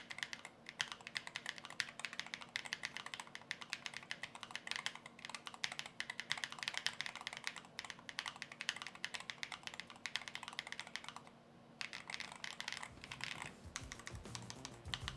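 Chilkey ND75LP low-profile mechanical keyboard, stock with no mods, being typed on steadily in fast runs of keystroke clacks. Typing breaks off for about a second around eleven seconds in, then resumes.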